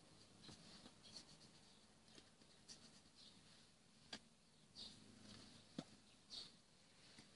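Near silence with a low hum, broken by faint short breathy hisses and a few small mouth clicks from a man mouthing words as he signs, plus light rustling of his jacket.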